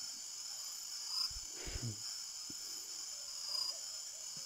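Steady high-pitched chorus of night insects, with a brief low thump about a second and a half in.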